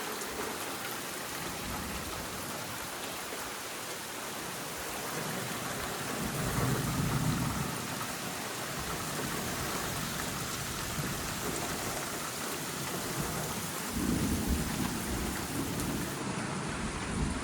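Heavy rain pouring steadily in a thunderstorm, with two rolls of thunder: one about six seconds in, and another starting about fourteen seconds in and rumbling on to the end.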